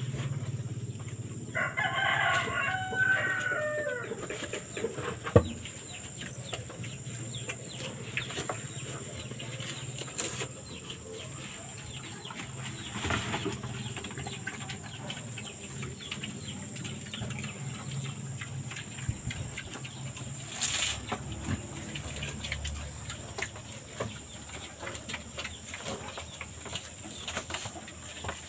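A rooster crows once near the start, a pitched call lasting about two and a half seconds. A sharp knock follows a few seconds later, then a steady low hum with scattered small clicks and knocks.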